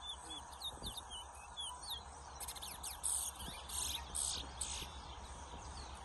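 Caged towa-towa seed finches singing in a song race: short whistled notes repeating quickly, with a louder, denser run of rapid song from about two and a half seconds in that lasts around two seconds.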